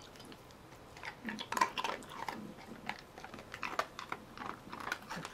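Dog chewing a hard treat: a run of irregular crunches starting about a second in.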